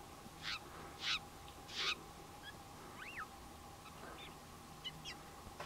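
Steller's jay calling: three short harsh calls in quick succession, a thin whistle that rises and falls about three seconds in, a few faint chips, and one more harsh call at the end.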